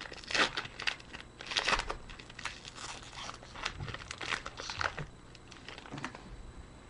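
The wrapper of a 2010-11 Contenders basketball card pack being torn open, crinkling and tearing in a quick series of rustles that die away about six seconds in.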